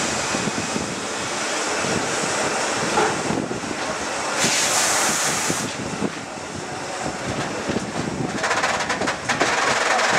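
Renfe series 440 electric train running out of a station, heard from an open window with wind buffeting the microphone over the train's steady running noise. There is a brief hiss about four and a half seconds in, and from about eight and a half seconds a dense run of sharp clicks and rattles.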